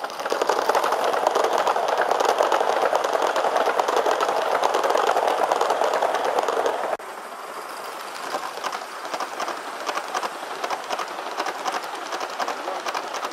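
Metal wheels of a long train of large-scale model passenger coaches rolling past on a model railway track, a dense, rapid clicking over the rail joints. The sound drops suddenly about seven seconds in and carries on quieter with the same clicking.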